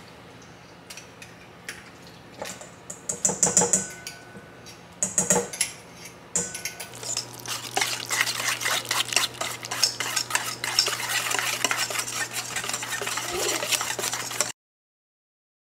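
A wire whisk in a stainless steel mixing bowl beating pumpkin purée into the wet ingredients for pumpkin bread. There are a few scattered taps and scrapes at first, then from about seven seconds in a fast, steady run of clinks and scrapes of the wires against the metal. It cuts off suddenly near the end.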